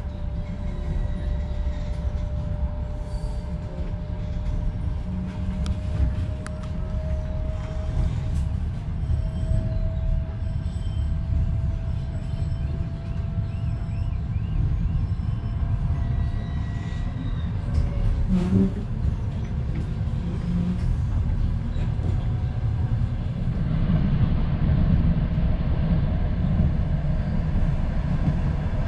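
Ukrainian Railways sleeper coach running, heard from inside: a steady low rumble of wheels on track with a faint steady whine. There is a single knock about two-thirds of the way through, and the running noise grows louder near the end.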